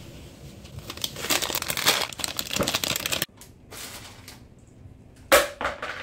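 Crinkling of a thin plastic shopping bag and a pretzel bag as they are grabbed and handled, dense for a couple of seconds and then stopping abruptly. Scattered lighter rustles follow, with one short, loud rustle of the pretzel bag near the end.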